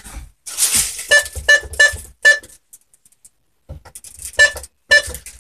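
Burglar alarm control panel keypad beeping at each key press as the walk test is entered: a brief rustle, then four short beeps in quick succession, and two more near the end.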